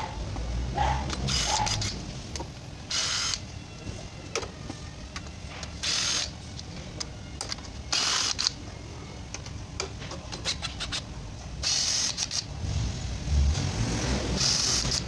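Hand ratchet wrench clicking in short runs as bolts on the automatic transmission oil pan are worked, with a low rumble near the start and again near the end.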